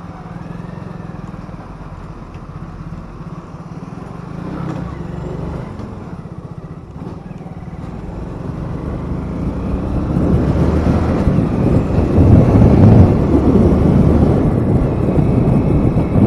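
A motorbike or scooter engine running while riding. Wind buffets the microphone, growing louder from about ten seconds in as the ride speeds up.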